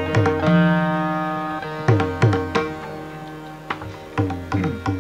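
Carnatic veena playing a melodic passage in raga Sindhu Bhairavi: plucked notes ringing on and sliding in pitch. A mridangam accompanies in Adi tala with sharp strokes.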